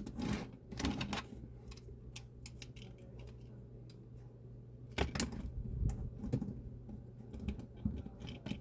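Hard plastic accessory parts clicking and tapping as they are handled and fitted onto a transforming robot action figure, with a few louder snaps at the start and about five seconds in.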